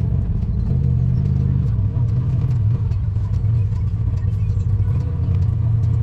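Polaris Pro XP side-by-side engine running at a steady low drone on a trail, with many small clicks and knocks over it.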